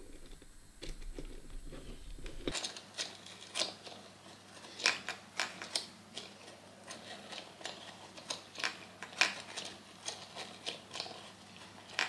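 Hand-cranked wooden bird automaton running: its gear train and cam mechanism give irregular small clicks and knocks, several a second, as the crank turns and the bird's head bobs. The clicking starts a couple of seconds in, after some faint handling clicks.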